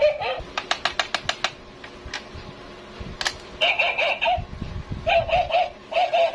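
Mini doghouse toy playing its electronic sound effects: short warbling squeaky calls, repeated in quick groups. Near the start a fast run of about eight mechanical clicks, and one sharp click about three seconds in.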